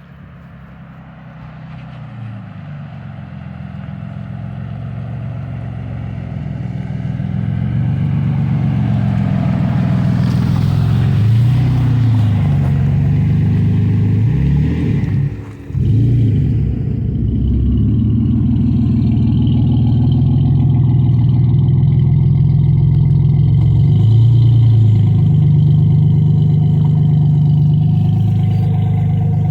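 Dodge Magnum's V6 engine revving up and down repeatedly under load as the car is rocked and its tyres spin, trying to pull free of an icy spot. The sound grows louder over the first several seconds, then holds, with the engine note swelling and falling several times and briefly dropping off about halfway through.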